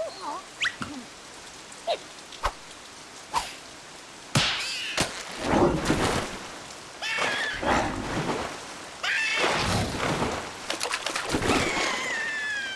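Cartoon sound effects: a few sharp clicks and knocks, then from about four seconds in a run of loud noisy bursts mixed with squeaky, gliding character vocalizations, and a falling whistle near the end.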